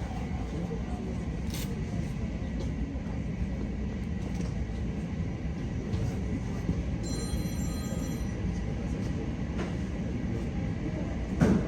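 Steady low rumble of a moving vehicle's interior, with a brief high electronic chime about seven seconds in and a short thump near the end.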